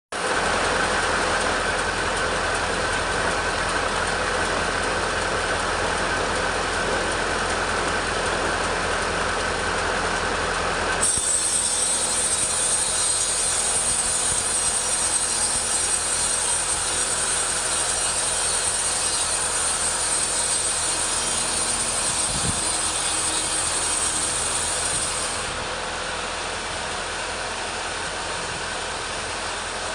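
Two-stroke petrol chainsaw running steadily under load as it rips teak lengthwise. The sound changes suddenly about eleven seconds in and gets a little quieter near the end.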